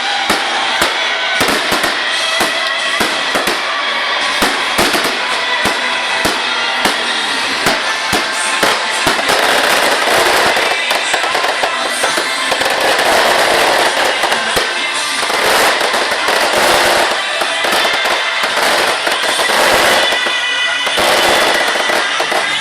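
Fireworks display: a quick run of sharp bangs that thickens into dense crackling about ten seconds in.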